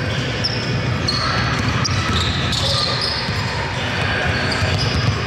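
Basketball game play on an indoor court: sneakers squeaking in short high-pitched chirps, a ball bouncing, and players' voices over a steady low hum.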